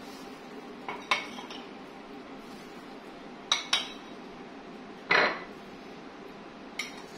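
Spoon clinking against a bowl: a handful of sharp knocks, with the loudest and longest about five seconds in, as more gram flour is spooned into pakora batter.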